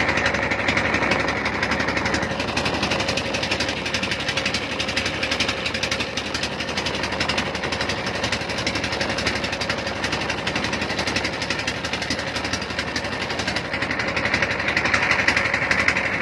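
A small wooden pompong motorboat's engine chugging steadily with a fast, even beat, heard from on board while the boat is under way.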